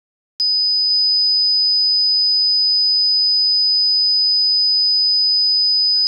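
The Arduino fire alarm's two electronic buzzers sounding together as one steady, high-pitched continuous tone, which starts with a click about half a second in. It signals that both the flame sensor and the MQ-2 gas sensor have been triggered.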